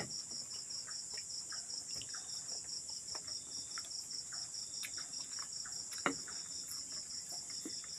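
Night insects calling in the forest: a high cricket-like chirp pulsing evenly about five times a second over a steady high shrill drone. A sharp click right at the start and another about six seconds in.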